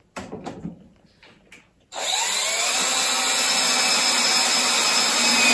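Cordless drill driving a screw through a timber strut joint. A few light knocks of handling, then about two seconds in the drill starts and runs steadily under load, its whine rising slightly in pitch.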